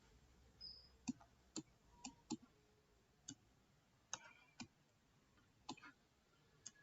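Computer mouse clicking: about nine single, sharp clicks spaced irregularly, a second or so apart, and faint.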